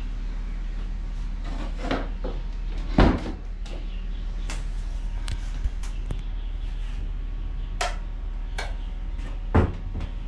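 Scattered wooden knocks and clicks over a steady low hum, with two louder thumps, one about three seconds in and one near the end, in a timber house interior.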